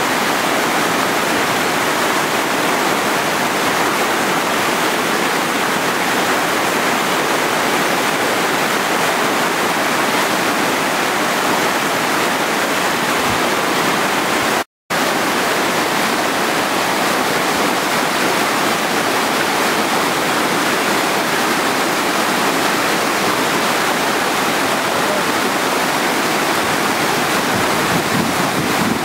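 Loud, steady rush of a waterfall pouring into the whitewater rapids of a mountain river. The sound cuts out for a moment about halfway through, then carries on unchanged.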